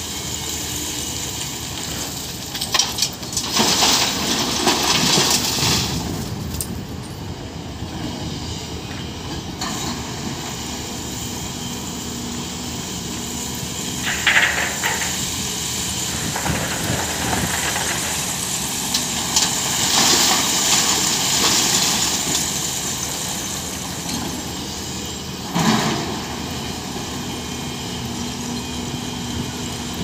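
Caterpillar hydraulic excavator engine running steadily while it digs broken rock. Several loud bursts of rock scraping and clattering come through, a few seconds in, around the middle and near the end.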